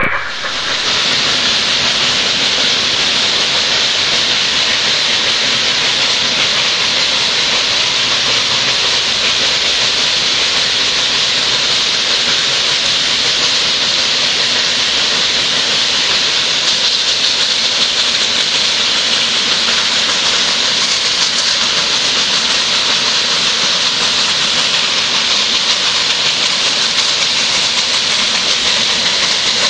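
Nilgiri Mountain Railway steam locomotive passing, its steam giving a loud, steady hiss.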